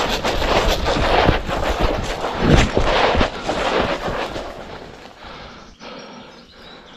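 Rapid running footsteps, with thumps and rustling through grass and undergrowth, loud for the first four seconds or so and then fading.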